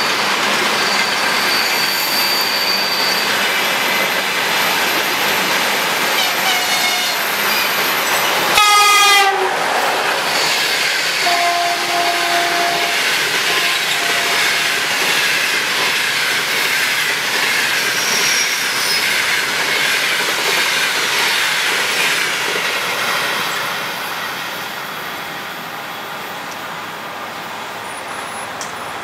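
Passenger train hauled by an EP20 electric locomotive passing by: steady loud wheel-and-rail noise, with one short horn blast about nine seconds in. The noise drops somewhat for the last few seconds.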